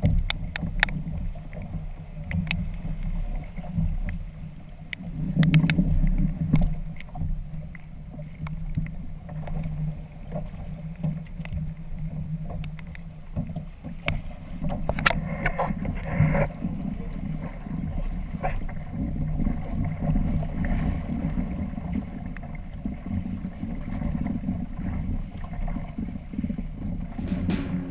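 Water sloshing and splashing against the hull and outriggers of a Hobie Tandem Island sailing kayak in choppy sea, with wind rumbling on the microphone and scattered knocks and clicks of gear.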